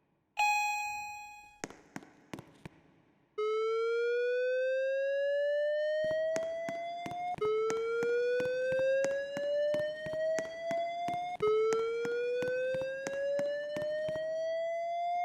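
Building fire alarm in evacuation mode: a single chime rings and dies away, then a slow-whoop tone starts about three seconds in, a pitch sweeping steadily upward for about four seconds and restarting, three times over. Regular clicks tick along behind the tone from about six seconds in.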